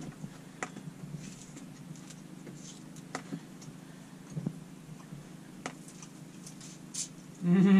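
Faint scattered ticks and small taps of hands handling food on aluminium foil, squeezing a peeled orange over a steak, over a steady low hum. A voice starts right at the end.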